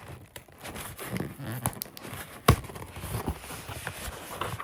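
Packaging being handled and torn open: irregular rustling and crinkling, with one sharp knock about two and a half seconds in, the loudest sound.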